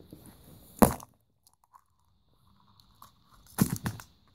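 A wrapped surprise egg smacked down on the floor to crack it open: one sharp crack a little under a second in, then a quick run of crunching cracks near the end as it breaks apart.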